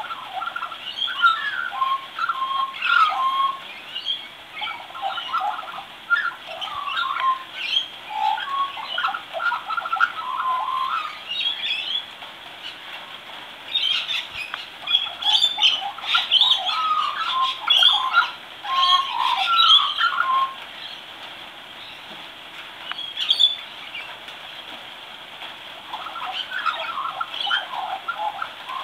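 Young Australian magpie practising its song: long runs of quick, jumbled warbling notes that jump about in pitch, coming in bouts, with a few seconds' pause about two-thirds of the way through before it starts up again near the end.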